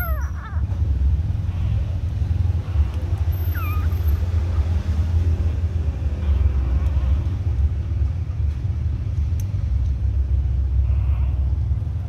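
Newborn puppies giving short high squeaks, a few falling squeaks right at the start and another pair about three and a half seconds in, over a loud steady low rumble.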